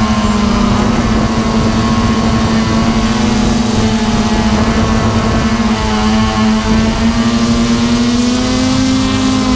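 Drone propellers and motors heard from the drone's own onboard camera, a loud steady hum over a low rumble. The pitch climbs a little about eight seconds in.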